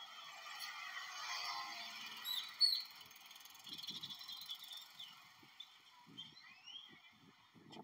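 Birds calling and chirping, a mix of short squeaky calls and rising and falling whistles, with one sharp call about two and a half seconds in.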